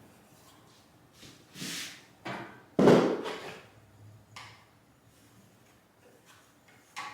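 Handling noises as a clogged saw dust bag is cleared and refitted: a few brief scrapes and rustles, then one sharp, loud knock about three seconds in.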